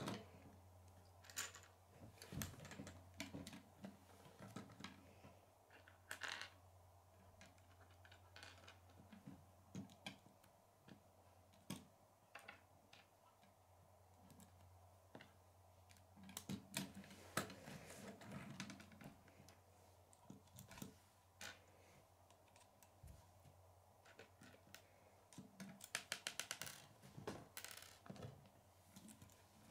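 Faint, irregular clicks and taps of plastic K'nex rods and connectors being snapped together and handled on a wooden table, with a quick run of clicks near the end.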